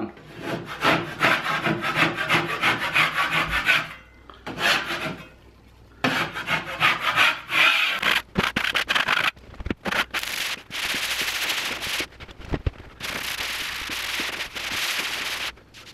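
Steel taping knife scraped in repeated strokes across a ceiling to cut down the ridges in a dried coat of drywall joint compound. In the last third it gives way to steady hand-sanding strokes with a sanding block over the same compound.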